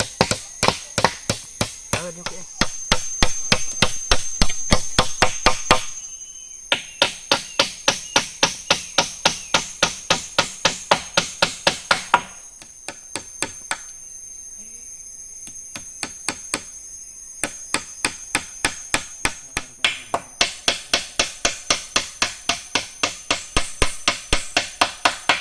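Quick, regular strikes of a tool on wood, about three or four a second, in runs broken by two pauses, over a steady high insect drone.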